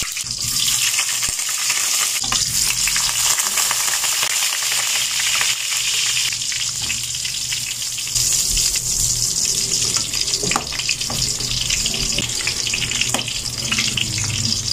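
Meatballs sizzling steadily as they fry in hot oil in a wok, with a few soft knocks now and then.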